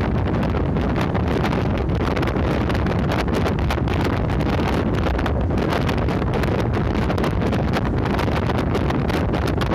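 Route bus travelling at speed: a steady rush of engine, road and wind noise, with wind gusting and buffeting against the microphone.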